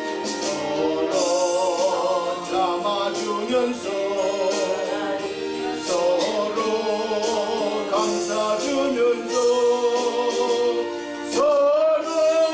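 A gospel song sung over instrumental accompaniment with a steady beat, the held notes sung with vibrato.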